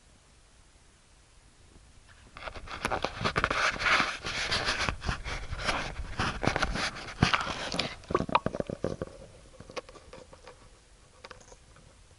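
Handling noise from a camera being lowered into shallow lake water among weeds: a dense run of knocking, scraping and splashing begins about two seconds in and eases off about nine seconds in, leaving a few scattered clicks.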